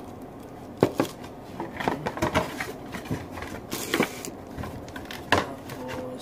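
Handling noise from a plastic-wrapped coffee dripper and its cardboard box: irregular knocks and rustling, the sharpest knocks about a second in and near the end.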